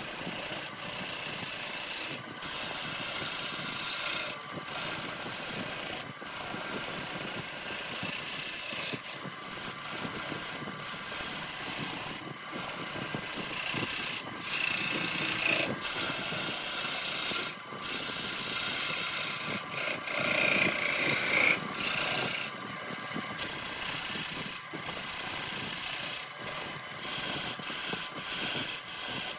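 Wood lathe running while a hand tool scrapes and cuts the spinning redwood, with many brief breaks where the tool comes off the wood.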